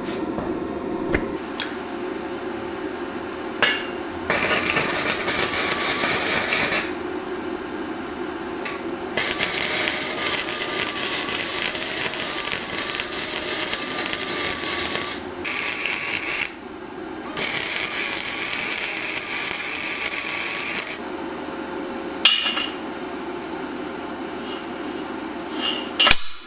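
A power tool runs in several long bursts with a slightly wavering pitch, and a few sharp hammer blows land between them, during work to free a seized CV axle.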